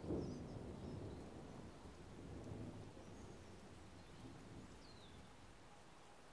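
Distant thunder rumbling, loudest at the start and fading away over a few seconds, with a few faint high bird chirps.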